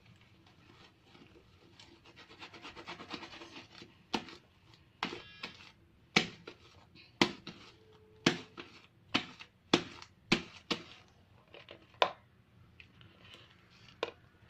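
Homemade slime being kneaded by hand: a quick run of small sticky crackles, then a series of sharp snaps about once a second as it is pressed and pulled.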